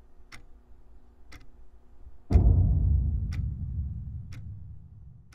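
Ticking-clock sound effect, one tick a second over a faint low drone. About two seconds in, a deep cinematic boom hits and dies away slowly over the next three seconds while the ticks go on.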